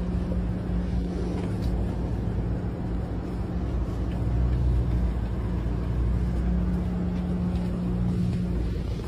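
Bus engine running, a steady low rumble with a constant hum, heard from inside the bus cabin.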